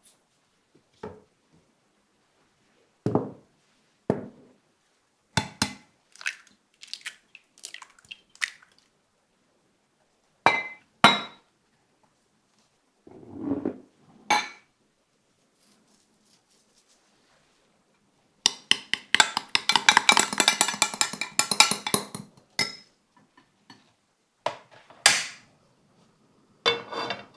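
Kitchen handling sounds: separate clinks and knocks of glass bowls against a glass measuring cup as chopped vegetables are tipped in. About two-thirds of the way through comes some three seconds of rapid clinking as the egg mixture is stirred in the glass cup. Near the end a few knocks follow as a frying pan is set on a portable gas burner.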